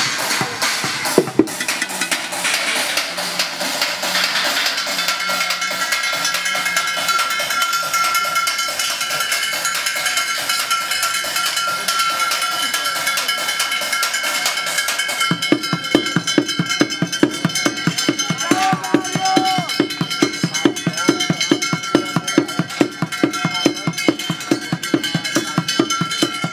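Fast, driving techno-style drumming with sticks on a kit of recycled objects: metal pots, pans and bowls, plastic buckets and small drums. Ringing metal tones hold under a rapid stream of hits, and a deeper, regular beat joins about halfway through.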